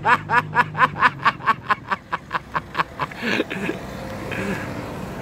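A man laughing hard, a long fast run of breathy 'ha-ha' pulses, about five or six a second, that dies away about three seconds in.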